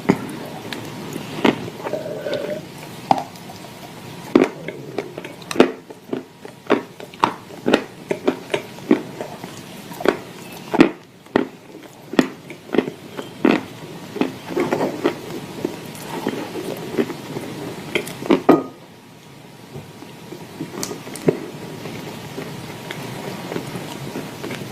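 Dry clay chunks being bitten and chewed in clay paste: irregular sharp crunches and cracks, coming thick and fast for most of the stretch and thinning out near the end.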